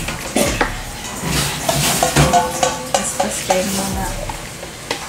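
Metal ladle scraping and clinking against a stainless steel mixing bowl as kutsinta batter is scooped out and poured into small cups, with a string of sharp clicks and scrapes.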